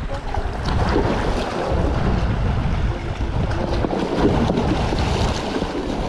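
Wind buffeting the microphone over sea waves washing against breakwater rocks: a steady rushing noise with a heavy low rumble.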